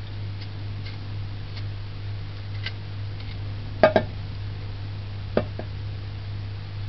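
A small knife peeling and picking between the knobs of fresh ginger root: a few sharp clicks and taps of the blade, the loudest a double click about four seconds in and another near five and a half seconds, over a steady low hum.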